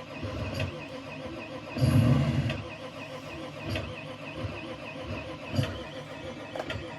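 Car engine being cranked in short, repeated bursts about once a second that never catch, the longest about two seconds in: the engine won't start.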